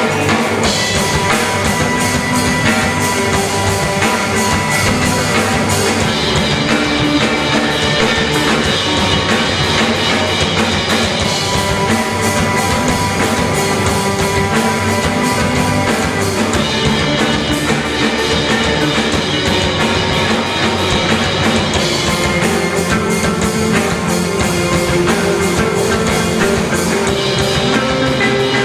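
Rock band playing a song with guitars and a drum kit: loud, dense and steady, with a fast driving beat.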